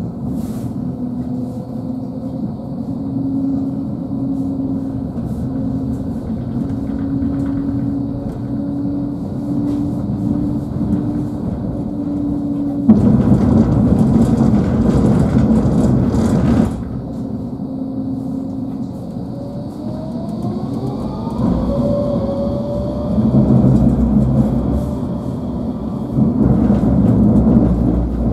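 Nottingham Express Transit tram running along the line: a steady motor hum, then a louder rumbling stretch about 13 seconds in that lasts about four seconds. Later the motor whine rises in pitch as the tram picks up speed, with more rumbling near the end.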